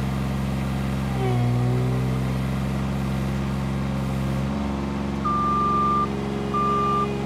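Bobcat L28 small articulated loader's engine running steadily while moving dirt, its pitch shifting as it takes and eases load. About five seconds in its backup alarm sounds two steady beeps as the machine reverses.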